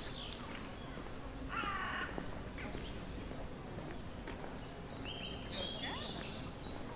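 Garden ambience with a songbird singing runs of short, sharp falling notes, at the start and again from about five seconds in, and a single lower, harsher call about a second and a half in, over a steady low background rumble.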